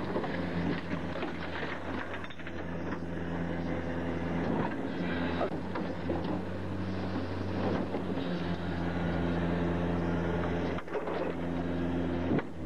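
Garbage truck engine running steadily while the Leach rear loader's hydraulic packer cycles through the hopper, with scattered cracks and clanks as a bicycle and plastic toy tricycles are crushed.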